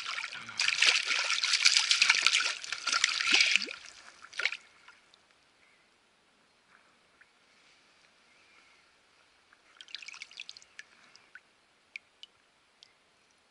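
Stream water splashing and trickling close to the microphone for about four and a half seconds, then dropping to near quiet, with a short spatter of splashing and a few sharp ticks near the end.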